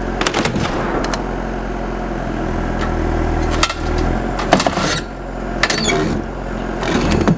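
Heavy equipment engine running steadily, with several short knocks and creaks from the loader boom's attachment pressing against a metal-sided shack.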